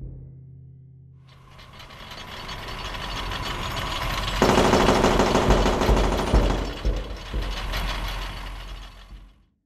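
A harsh, dense wash of noise in a slideshow soundtrack. It swells in from about a second in, jumps much louder about halfway through, then fades and cuts off abruptly just before the end.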